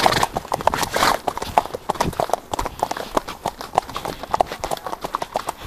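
Hoofbeats of several horses moving along a dirt and grass track, a quick, irregular run of sharp strikes.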